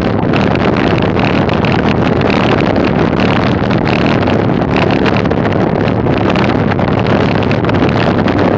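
Wind rushing over the microphone of a camera mounted on a moving bicycle, with the tyres rolling on an unpaved dirt road. Steady rumble dotted throughout with small clicks and rattles.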